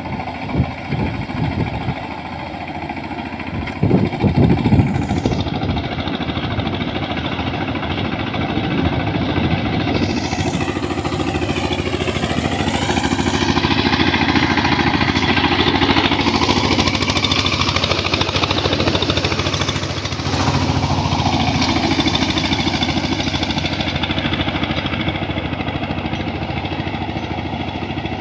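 Kirloskar MegaT 15 hp power tiller's diesel engine running steadily under load while it puddles a flooded paddy field, its pitch rising and falling for a few seconds about ten seconds in.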